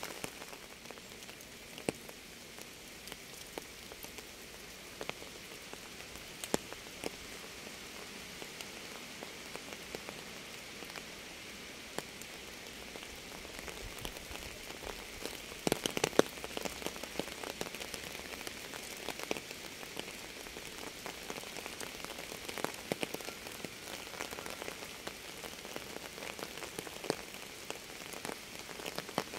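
Steady rain falling on a surface: an even hiss with scattered sharp drop impacts, and a cluster of louder drop hits about halfway through.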